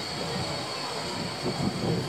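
Wind rumbling on the camera's microphone, steady with small swells.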